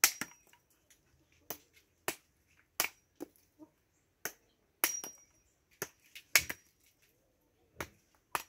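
Knife blade chopping a cassava stem held in the hand into short planting cuttings: about a dozen sharp, irregular whacks, several followed by a brief high metallic ring.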